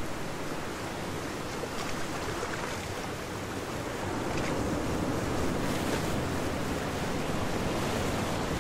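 Waves washing on a beach with wind on the microphone, a steady rush that grows a little louder about four seconds in.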